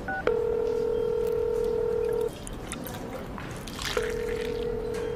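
Video-call ringing tone on a tablet: a short two-note chirp, then a steady electronic tone ringing twice, each ring about two seconds long with a short pause between.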